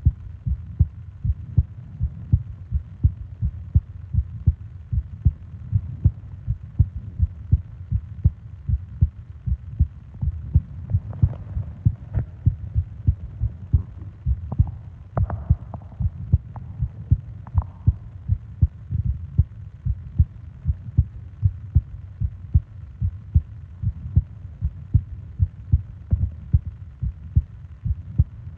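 A person's heartbeat, close-miked: a steady, even rhythm of low thuds. A few faint breaths come in around the middle.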